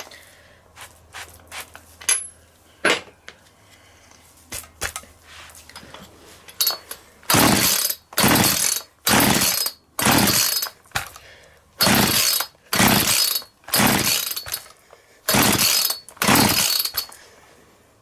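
McCulloch Mac 441 two-stroke chainsaw being pull-started: after some light clicks and knocks of handling, the recoil starter cord is yanked about ten times, roughly once a second, the engine turning over without catching. It has spark and fuel but will not fire.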